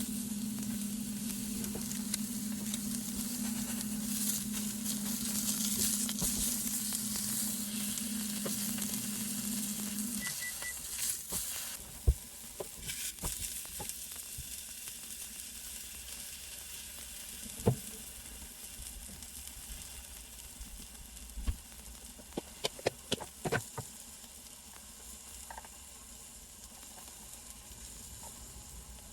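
Food sizzling in a frying pan, with a steady low hum that stops about ten seconds in. After that the sizzle dies down and a few sharp clicks and knocks follow, with a quick run of them about two-thirds of the way through.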